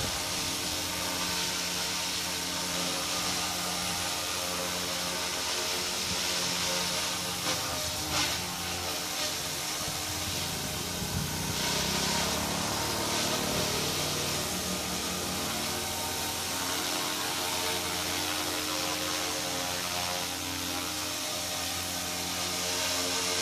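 Devil 380 radio-controlled helicopter hovering, a steady whine of its motor and spinning rotors, with small shifts in pitch around the middle.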